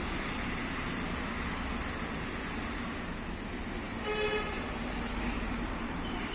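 Steady road-traffic noise, with a short car-horn toot about four seconds in.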